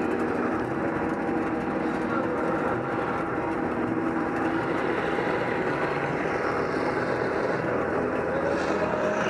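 Sherp ATV's diesel engine running steadily as the vehicle drives through a mud bog.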